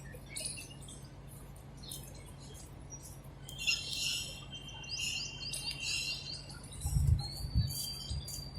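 House sparrows chirping: clusters of short, high chirps, thickest in the middle, with a thin drawn-out note near the end. Two low thumps sound shortly before the end over a faint steady hum.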